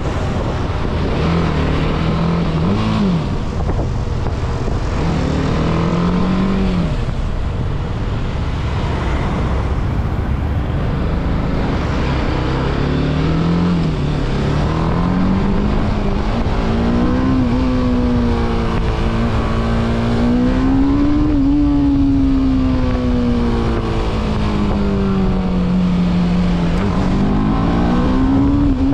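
BMW motorcycle's engine pulling through the gears in city traffic. Its pitch rises and drops back at each shift, then holds at a steady cruise, eases off and climbs again near the end, with wind rush on the microphone.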